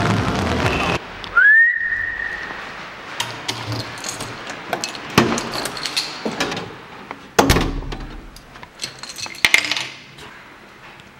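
A short whistle that rises and then holds briefly, followed by scattered clicks and clinks of a door being opened and keys being handled and set down on a wooden table.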